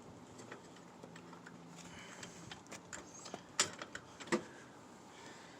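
Light metallic clicks and taps of brake-line hardware and hand tools being handled while a brake-line bracket is fitted onto its stud at the master cylinder. The clicks are scattered, with two sharper knocks in the second half.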